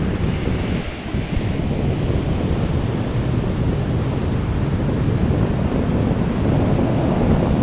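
Surf breaking and washing up a sandy beach, with wind buffeting the microphone in a steady low rumble.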